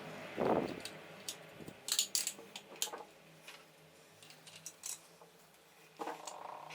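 A brief scraping burst about half a second in, then a scattering of sharp, light metallic clicks and clinks from small metal parts or hand tools being handled.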